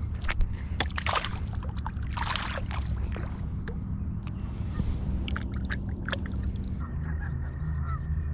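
Water splashing and sloshing at the lake's edge, with scattered clicks and knocks, over a steady low rumble; near the end, faint calls of geese.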